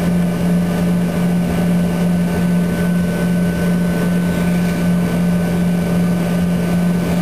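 Steady cabin drone of an Embraer ERJ-145LR on the ground with its rear-mounted Rolls-Royce AE 3007 turbofans at low power, heard from a window seat: a strong, even low hum with a thin high whine above it, unchanging throughout.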